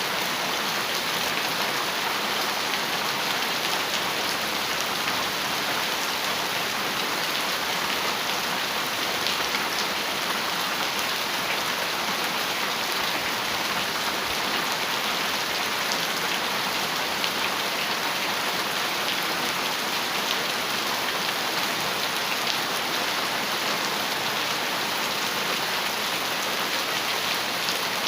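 Heavy rain falling steadily on a metal roof: a dense, even hiss with a fine patter of drops and no thunder.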